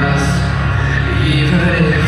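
Amplified song played loud through PA speakers: a solo singer's voice over a backing track with heavy bass and occasional cymbal hits.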